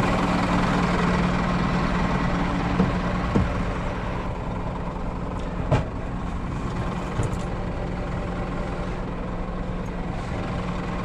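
Scania R410 truck's six-cylinder diesel idling steadily, with a few short knocks and clunks about three, six and seven seconds in.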